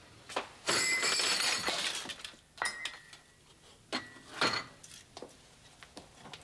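Glass and crockery clinking as they are handled and set down: a jangling rattle about a second in, then a few sharp clinks, one leaving a brief ringing tone.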